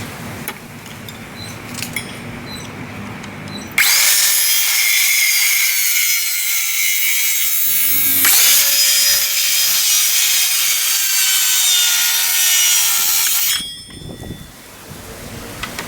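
A power tool running under load in wood, a loud steady whine that starts abruptly about four seconds in and cuts off near the end. A few faint ticks come before it.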